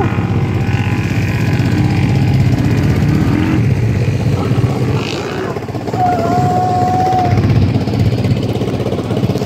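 Off-road vehicle engines running, a loud rough low rumble, with a short steady tone about six seconds in.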